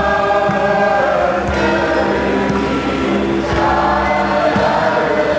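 Overtone choir singing long held chords, with bright overtones ringing clearly above the sung notes. The chord shifts about a second and a half in and again past the middle.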